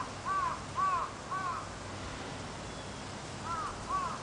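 A crow cawing in a regular run of short, arched calls, about two a second, falling silent for nearly two seconds partway through and then starting another run.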